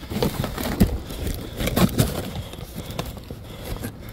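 Cardboard box of tins being handled and its flaps folded shut: cardboard rustling and scraping, with irregular knocks.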